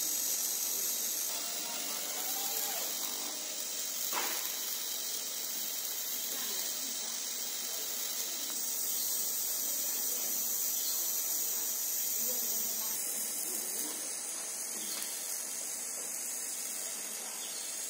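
Steady high-pitched hiss from a 50 W fiber laser cutting machine as it cuts thin metal sheet.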